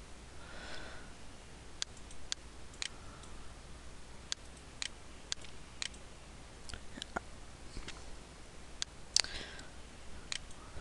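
Computer mouse clicking: a dozen or so sharp, single clicks spaced irregularly, with pauses between them.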